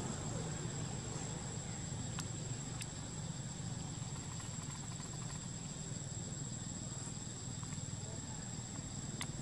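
Outdoor ambience: a steady high-pitched insect drone over a low, even rumble, with a few faint clicks about two, three and nine seconds in.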